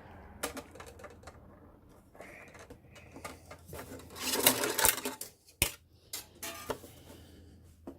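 Handling noises as a fuel pickup nozzle is pushed and worked into a diesel heater fuel tank: scattered clicks and knocks, with a longer scrape about four and a half seconds in.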